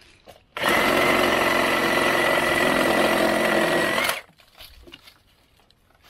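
Milwaukee Sawzall reciprocating saw with an axe blade cutting through a tree branch, running for about three and a half seconds with a steady whine, starting and stopping abruptly.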